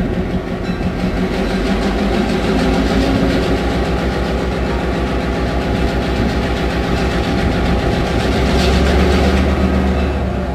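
EMD FP7 diesel locomotive's 16-cylinder 567 two-stroke engine running with a steady low pulsing beat, the rumble growing louder near the end.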